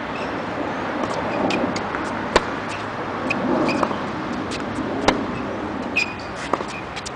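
Tennis racket striking the ball during a rally: two sharp hits about two and a half seconds apart, with fainter ball bounces and clicks between, over steady background noise.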